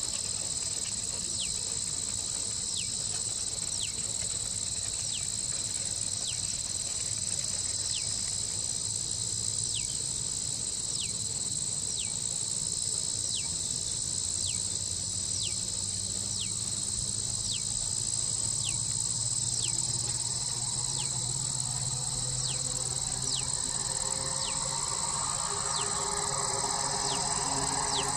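Steady chorus of crickets and other insects, with a thin, high falling chirp repeating about once a second. In the last third a low engine rumble slowly builds underneath, typical of a diesel train approaching in the distance.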